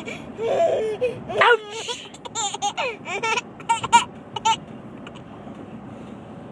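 A small child giggling in a string of short, high-pitched bursts that quicken into rapid little laughs, then stop after about four and a half seconds.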